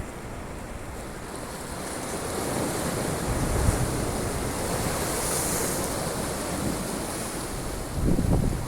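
Sea waves surging in, the wash swelling to a peak partway through and then easing off, with wind buffeting the microphone near the end.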